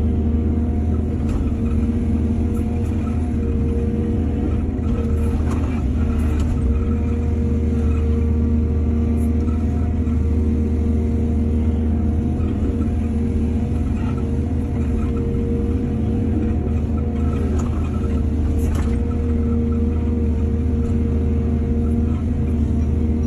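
Heavy earthmoving machinery's diesel engine running at a steady speed with a low rumble, and a few faint knocks scattered through.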